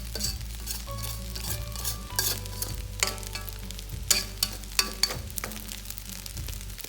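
Meat and noodles sizzling in a pan as they are stirred, with repeated sharp clinks and scrapes of the utensil against the pan, the loudest few between about two and five seconds in.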